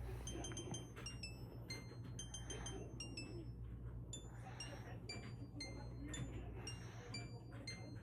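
Light tinkling music of high, short bell-like notes at changing pitches, several a second, in the style of a music box or glockenspiel, over a low steady hum.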